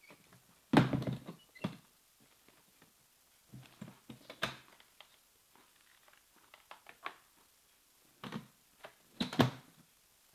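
A leather briefcase handled on a stone kitchen countertop. It lands with a heavy thud about a second in, then come scattered knocks, taps and rustles, and two louder knocks near the end as it is laid flat.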